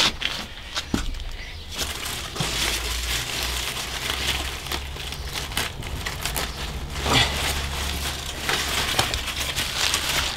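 Lettuce leaves rustling and crunching as a head of lettuce is picked by hand: a continuous crackly rustle with many small snaps.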